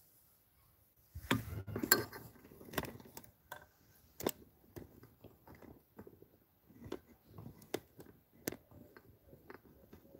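Irregular light clicks and knocks, a few a second, loudest and densest about one to two seconds in, then sparser.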